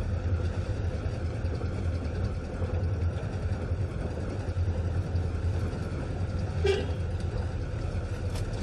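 Steady low rumble of a car's engine and road noise heard from inside the moving vehicle, with one short click about two-thirds of the way through.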